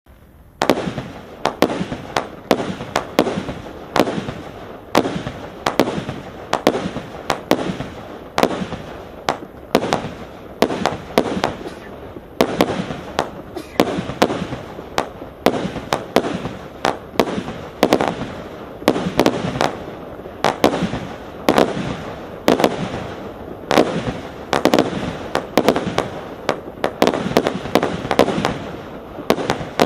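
Hallmark Fireworks 'Annual Gala' 224-shot compound firework cake firing a continuous barrage: sharp shots and bursts come several times a second without a break, starting about half a second in.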